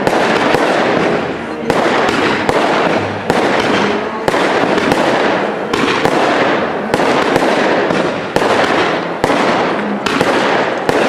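Cake fireworks firing: sharp shots about once a second over a continuous dense noise of launches and bursting shells.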